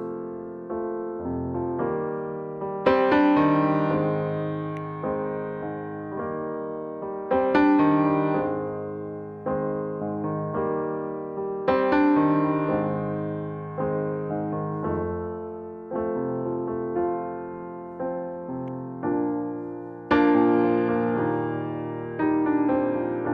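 Slow piano music: sustained notes and chords that swell and fade, with louder chords every few seconds.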